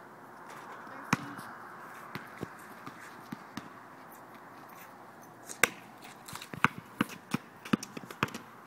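Basketball bounced on an outdoor court. A few scattered bounces come first, then a quick run of dribbles at about three to four a second, starting a little past halfway.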